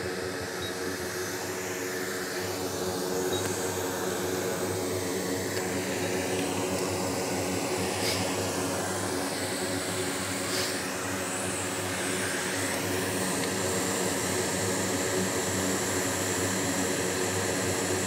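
Steady whirring hum of a small electric blower motor, with two light clicks about eight and ten and a half seconds in.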